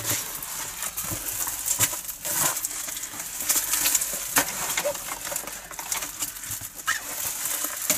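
Diamond-painting canvas and its clear plastic cover sheet rustling and crinkling as the large sheet is handled and turned over, with irregular crackles.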